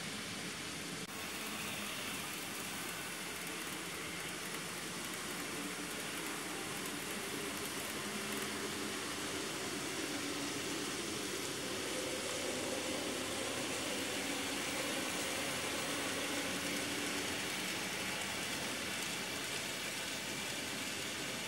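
Model trains running on a layout: a steady rolling hiss of wheels on track with a faint motor hum that strengthens a little about halfway through.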